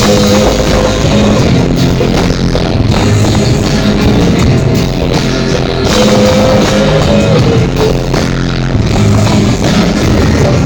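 A live rock band playing loud, with the full band coming back in right at the start after a brief drop.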